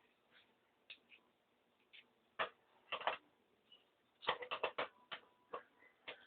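Sharp clicks and knocks of a flat iron's parts being handled and fitted back together, with a quick run of several knocks about four seconds in.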